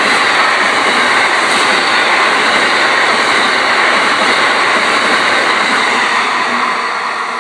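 Amtrak Northeast Regional train's Amfleet passenger coaches passing close at speed: a loud, steady rush of wheel and rail noise that eases slightly near the end.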